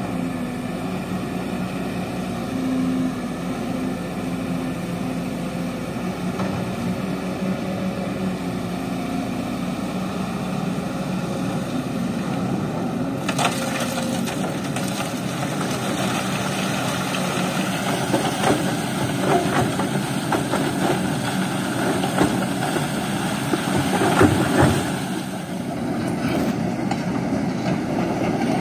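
Kobelco hydraulic excavator's diesel engine running steadily, then from about halfway on, stones and gravel rattling and clattering as the bucket dumps river material onto a steel mesh sand screen, the clatter loudest about three-quarters of the way through.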